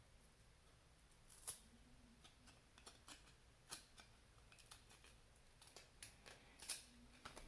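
Faint crinkles and soft clicks of a trading-card pack wrapper being opened and the cards inside handled, a handful of short snaps at uneven intervals over quiet room tone.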